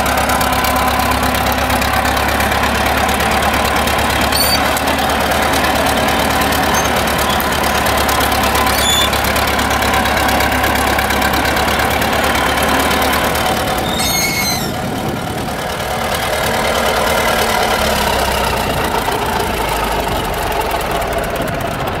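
Caterpillar D7 crawler bulldozer's diesel engine running steadily as the machine is driven and turned on its tracks to test its steering. The engine note dips briefly about fourteen seconds in, then picks up again.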